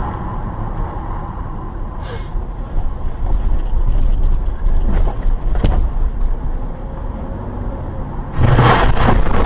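Car on the move heard from a dashcam: steady road and engine rumble with a couple of light clicks. Near the end comes a sudden loud burst of noise lasting about a second.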